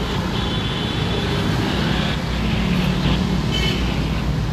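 Steady low rumble of a wheeled excavator's diesel engine running, mixed with street noise, with a few faint thin high-pitched squeals.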